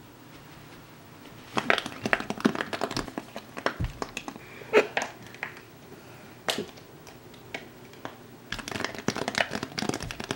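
Pink silicone pop-it fidget toy having its bubbles pressed in: runs of quick soft pops and clicks in several clusters, with short pauses between them.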